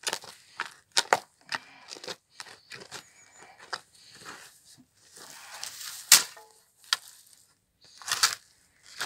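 Steel garden spade driven into soil underfoot and levering up clods: irregular crunching, scraping and tearing of earth and grass roots. The loudest crunch comes about six seconds in, with another cluster near the end.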